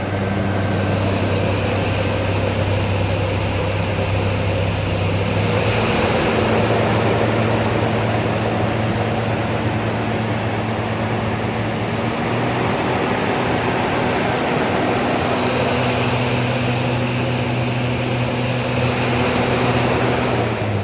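Trak TRL 1630SX CNC lathe spindle running under power with a steady hum and whir. It steps up in speed twice, then winds down as the spindle stops at the very end.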